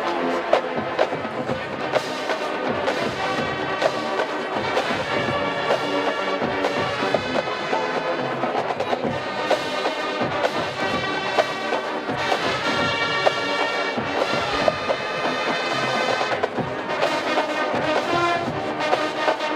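College marching band playing a pop arrangement: full brass with trumpets and trombones over a driving drumline beat.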